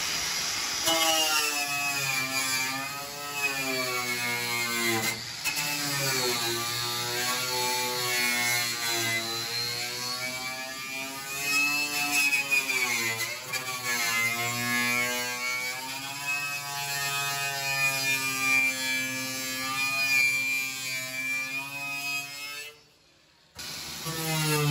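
Electric grinder running against the Beetle's sheet-metal body, its motor whine slowly rising and falling in pitch as the load changes. It cuts out briefly near the end, then starts again.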